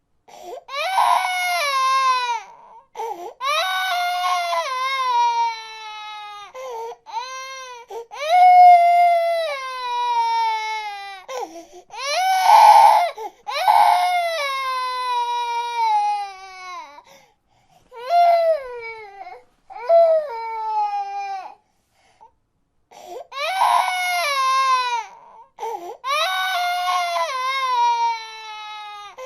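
An infant crying: a string of high-pitched wails a second or two long, most falling in pitch at the end, broken by short catches of breath, the loudest in the middle.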